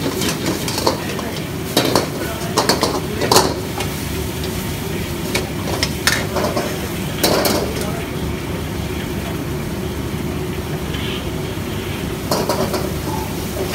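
Hakka noodles stir-fried in a wok: a steady sizzle, with the metal ladle and spatula scraping and clanking against the wok several times.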